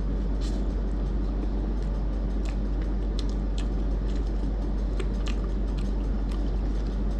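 A person chewing a mouthful of softened Oreo ice cream, heard as scattered soft mouth clicks over a steady low hum.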